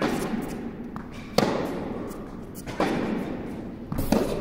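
Tennis rally: four sharp pops of the ball off the rackets and court, one about every second and a bit, each ringing on in the echo of a large indoor tennis hall.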